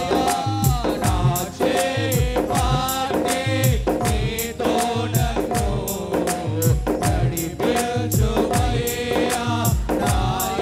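A man singing a Christian worship song into a microphone, over accompanying music with a steady drum beat and bass.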